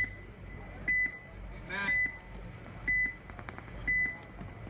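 Electronic countdown timer beeping: short, high beeps about once a second, counting down the last seconds before a paintball point starts.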